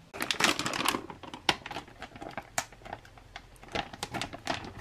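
Plastic self-heating ration bag crinkling and crackling as hands pull it open: a dense burst of crackle in the first second, then scattered sharp crinkles.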